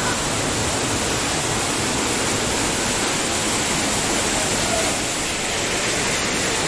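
A small river's water rushing steadily.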